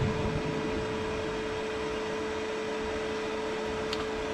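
A steady machine hum with one constant mid-pitched tone, a few low knocks at the start and a brief click about four seconds in.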